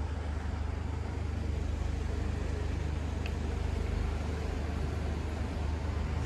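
Steady low rumble of city street traffic, with a faint short click about three seconds in.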